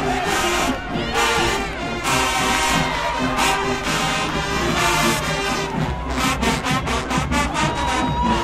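College marching band playing, with the brass section holding loud chords over the drums, then a run of rapid, evenly spaced drum hits in the last few seconds.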